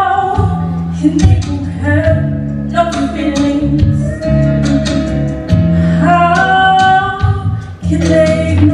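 A girl singing a song with held, wavering notes over an instrumental accompaniment with a bass line and drum hits.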